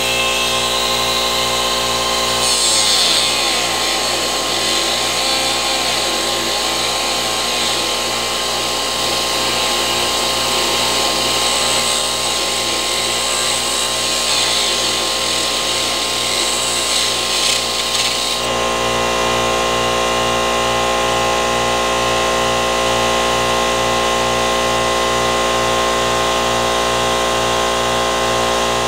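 A power tool running steadily with an even hum. From about two and a half seconds in until about two-thirds of the way through, a rough, harsh grinding noise rides on top as it works the material, then only the steady running sound is left.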